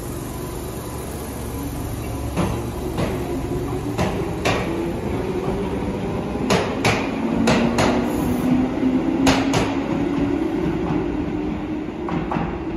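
Tobu 10000-series electric train pulling out of the station and picking up speed. The traction motors whine with a slowly rising pitch over the rumble of the running gear. Paired clacks of the wheels crossing rail joints come closer together as the train gathers speed.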